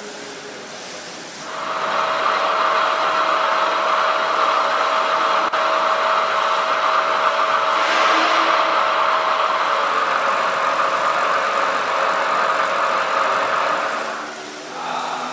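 Knuth VHF 1 milling machine running: a steady machine sound with one constant tone starts about a second and a half in, holds evenly, and dies away near the end.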